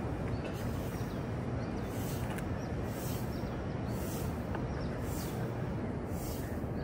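Outdoor city ambience: a steady hum of distant traffic with small birds chirping now and then, and a high hiss that swells about once a second.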